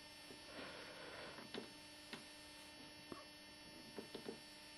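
Near silence: a faint steady electrical hum, broken by a few soft scattered clicks.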